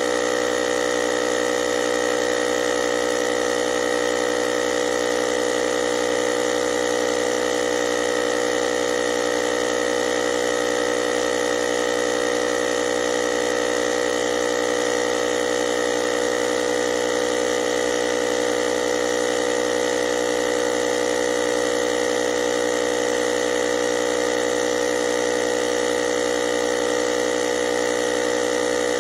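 Cordless tyre inflator's small electric air compressor running steadily, a constant motor hum with a buzzing whine that holds one pitch throughout.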